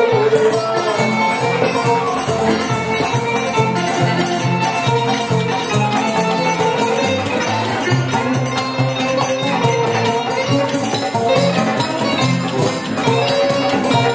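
Live Middle Eastern music for belly dance: a plucked lute, an oud, plays a melody over a steady repeating beat.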